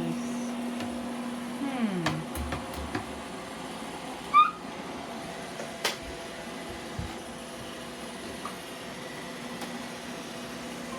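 Robot vacuums running on a rug: a steady motor hum, with a humming tone that slides down in pitch and stops about two seconds in. A short rising chirp sounds about four seconds in, and a click near six seconds.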